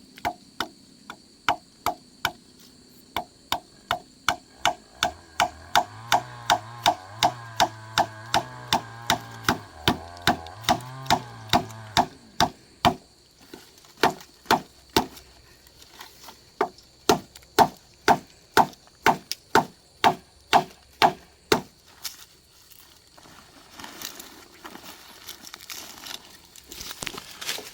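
A tool blade chopping wood, with sharp ringing blows about two a second in a long steady run that breaks off briefly twice, followed by rustling near the end.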